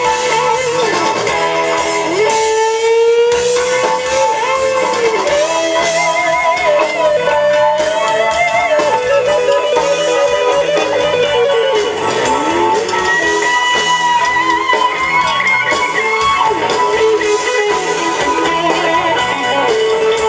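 Live rock band playing, led by an electric guitar holding long notes that bend in pitch, over a steady beat.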